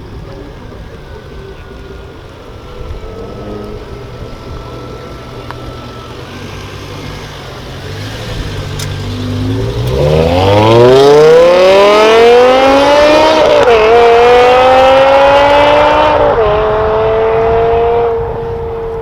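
A sports car engine is accelerating hard. The engine note climbs steeply and gets loud about ten seconds in, then it changes up two gears in quick succession and eases off near the end.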